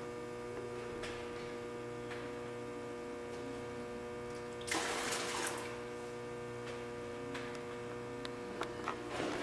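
Steady electrical hum at a constant pitch, with a short hiss about five seconds in.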